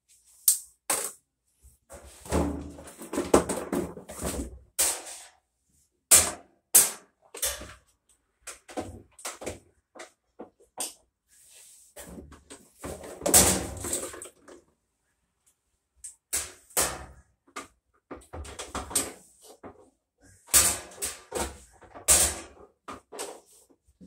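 Knocks, clicks and clanks of parts and tools being handled under a tipped-back Whirlpool top-load washer, with heavier rattling clatter about two seconds in and again around the middle.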